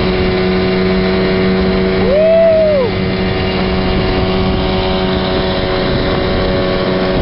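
Tow boat's outboard motor running steadily under way, a loud, even drone. About two seconds in, a short tone rises and falls within less than a second.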